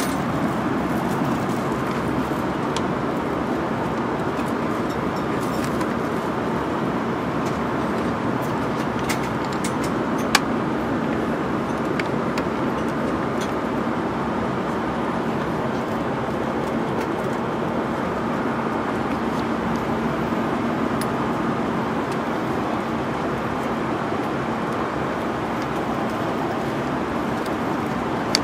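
Steady cabin noise of an Airbus A340-300 in flight: airflow and engine roar with a faint low hum. A single sharp click about ten seconds in.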